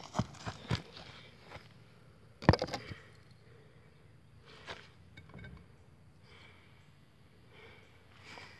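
Footsteps coming up close to the microphone, as a run of quick sharp steps in the first second. A single loud knock follows about two and a half seconds in, then scattered fainter rustles and clicks of hands handling the camera near the end.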